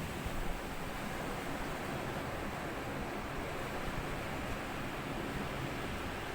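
Sea waves washing onto a sand beach: a steady wash of surf with no single break standing out.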